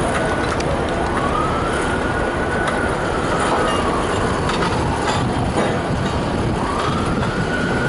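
An emergency vehicle's siren in a slow wail, rising and falling in pitch, peaking about two and a half seconds in and again near the end, over a steady rumble of traffic and machinery.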